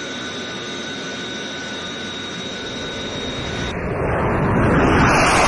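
Jet aircraft engines in flight: a steady rushing with a thin high whine. About three and a half seconds in, the whine drops away and a louder rush swells up.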